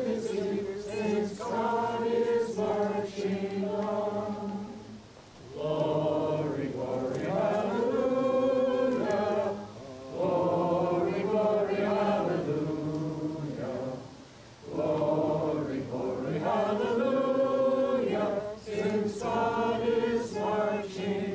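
A group of people singing together unaccompanied, in long held phrases of a few seconds each with short breaks for breath between them.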